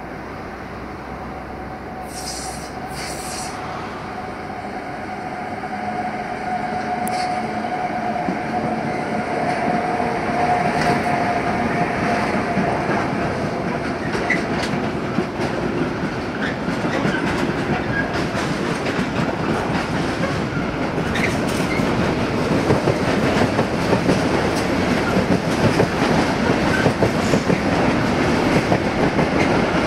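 Freight train running past, its wagon wheels clattering over the rails and growing louder. In the first half a thin, steady wheel squeal rises and fades.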